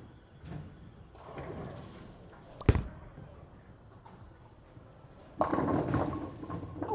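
A sharp thud a little under three seconds in, then the Hammer Deep Ocean Vibe bowling ball crashing into the pins about five and a half seconds in, a loud clatter that lasts over a second.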